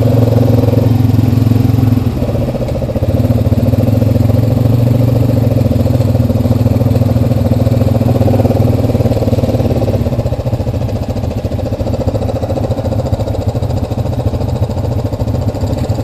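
Single-cylinder four-stroke ATV engine running steadily at low trail speed, easing off briefly about two seconds in and then picking back up.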